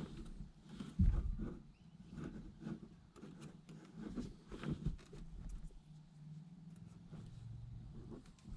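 Handling noises from wiring work: scattered light clicks, knocks and rustles, with a louder thump about a second in.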